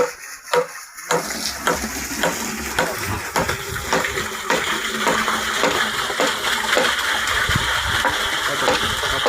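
Regular knocks, about one and a half a second, ringing a little at first. About a second in, a steady rush of running water starts under them.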